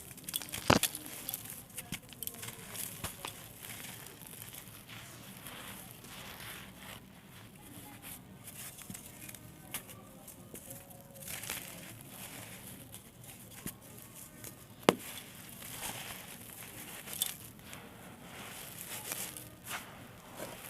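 Small dried blocks of gritty red sand and dirt being crumbled, giving a continuous crisp crackling and crunching with scattered sharp pops. The loudest pops come about a second in and again near the 15-second mark.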